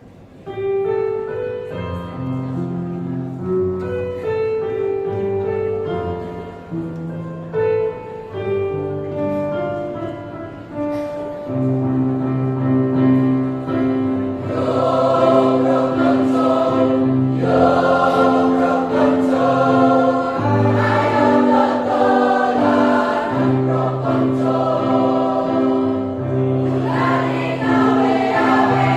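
A choir singing in parts, holding sustained chords; it enters about half a second in and swells fuller about halfway through as the upper voices grow louder.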